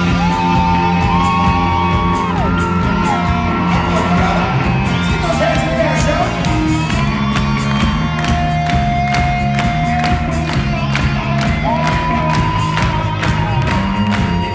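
Live rock band playing with a steady drum beat, filmed from the audience, with crowd whoops and cheers over the music.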